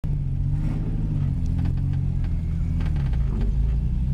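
The 1983 Porsche 911 Turbo's 3.3-litre single-turbo flat-six running at low, fairly steady revs, heard from inside the stripped race-car cabin while rolling slowly.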